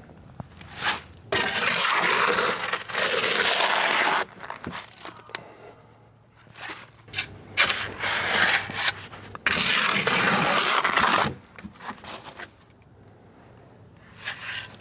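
Concrete being mixed by hand: a tool scraping and churning through the wet, gravelly mix in three long scraping spells, with scattered knocks between them.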